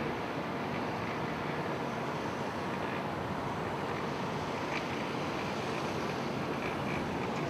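Wind rushing across the microphone, a steady noise with no breaks.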